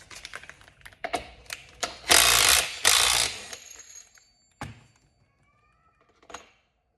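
Metal clicks and rattles of a chainsaw's clutch parts being worked off the crankshaft by hand, with two louder half-second rattling bursts about two and three seconds in, then a few faint clicks.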